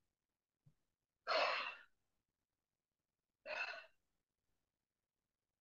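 A woman's two short, heavy, breathy exhales, about a second and a half in and again about three and a half seconds in. She is catching her breath, bent over after bouts of screaming.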